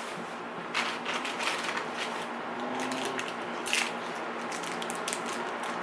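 Packaging being handled and opened by hand: irregular rustling and crinkling with scattered short crackles, one sharper crackle a little before the four-second mark.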